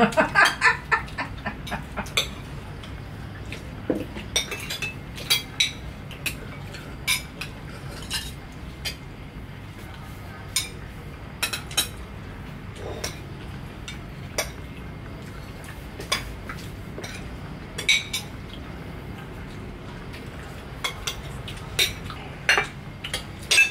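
Metal spoons and forks clinking and scraping on porcelain plates and bowls during a meal: irregular short clinks throughout, over a steady low hum.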